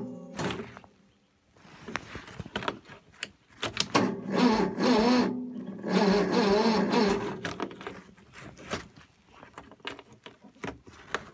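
Husqvarna ride-on mower's Kawasaki engine being turned over by its electric starter in three slow, wavering bursts without firing, then a few faint clicks near the end. The sluggish cranking of a cold engine at −14 °C is the sign of a weak battery.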